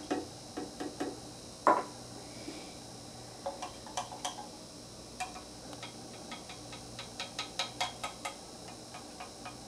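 A thin stick clicking irregularly, several times a second, against the inside of a metal paint can as it is stirred. A single louder knock about two seconds in comes from a drinking glass being set down on a wooden table.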